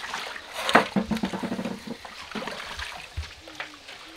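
Water splashing and sloshing as a large pot holding rui broodfish is pushed down and tipped over in a breeding tank to release the fish, with one loud splash about a second in.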